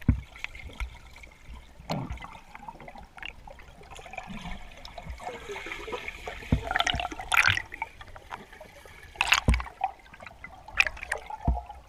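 Water rushing and bubbling around a GoPro's underwater housing as a freediver swims upward, with scattered knocks and clicks and several louder rushes of water in the second half.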